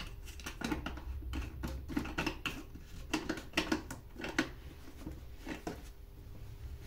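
Irregular light clicks and knocks of small hard objects being handled, about a dozen over five seconds.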